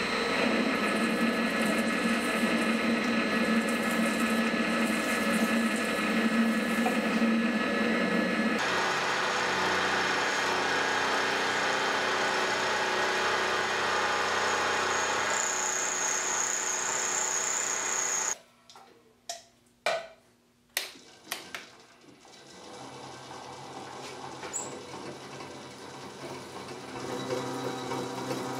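A metal lathe running as it turns a steel part, then a milling machine running. About two-thirds of the way through, the machine noise cuts off suddenly, leaving a few sharp clicks, before a lower motor hum builds again near the end.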